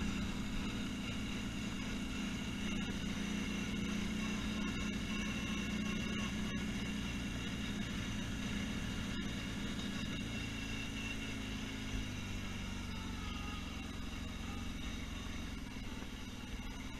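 ATV engine running steadily as the quad rides along a dirt trail, easing slightly quieter about twelve seconds in.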